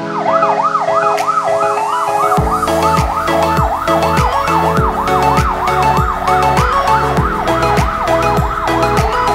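Yelp siren sweeping rapidly up and down, about four times a second, over music, with a steady dance beat coming in about two seconds in.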